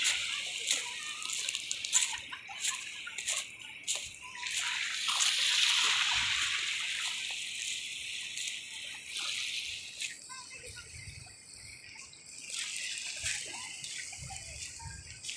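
Small waves washing in over a pebble shore, swelling strongly about five seconds in and dying down after ten, with short crunching footsteps on the pebbles throughout.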